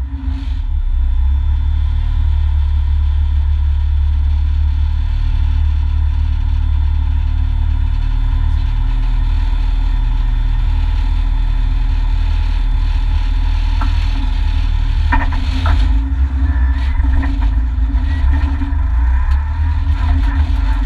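Renault Mégane N4 rally car's four-cylinder engine idling steadily, heard from inside the cabin, with a few short clicks and knocks about fourteen to sixteen seconds in.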